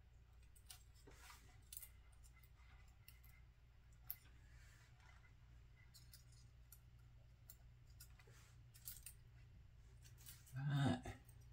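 Faint scraping and small clicks of a hobby knife working thin aluminium foil on a plastic model-car chassis, over a steady low hum. A short, louder thump near the end.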